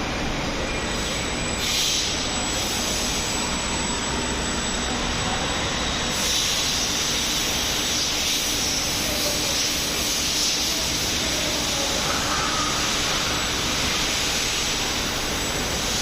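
Steady hum and hiss of a 1200-ton open-die hydraulic forging press running, the hiss growing stronger about six seconds in.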